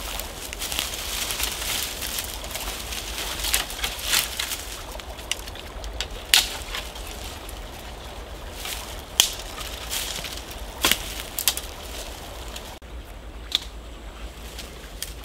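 Dry dead branches rustling and cracking as they are pulled from a brush pile for firewood, with several sharp snaps. About two thirds of the way through it turns quieter, with a few single snaps of small twigs.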